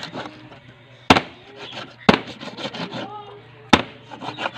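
Meat cleaver chopping raw chicken on a plastic cutting board: three sharp chops, the last after a longer pause.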